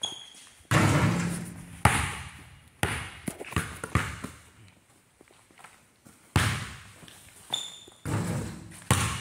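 A basketball shot twice at a hoop: each shot lands with a loud bang at the backboard and rim, then the ball bounces on the floor a few more times. Every impact echoes in the large empty gym.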